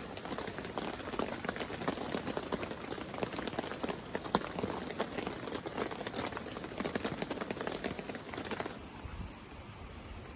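Heavy rain: a dense crackle of drops hitting a surface. About nine seconds in it drops suddenly to a quieter, duller patter.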